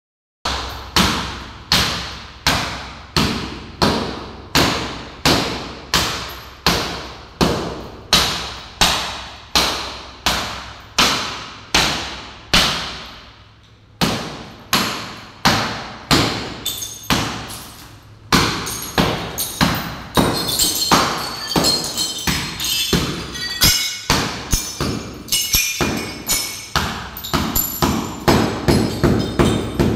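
A hammer striking a cracked wall mirror over and over, a steady beat of heavy thuds a little under two a second. After a short pause about halfway through, the blows come more unevenly and the glass breaks up, with shards clinking and falling.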